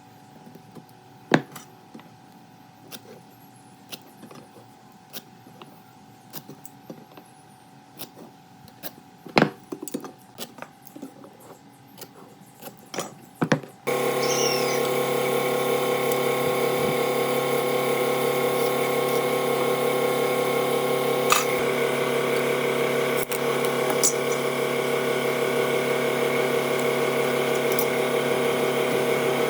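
Scattered taps and knocks of hand work on wood, then about halfway a power tool's motor starts abruptly and runs steadily.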